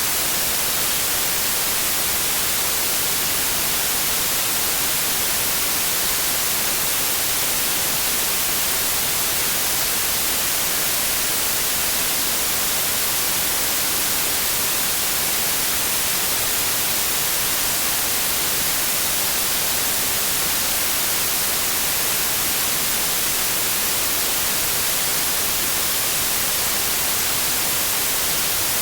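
Steady electronically generated white noise: an even, unchanging hiss, brightest in the high frequencies.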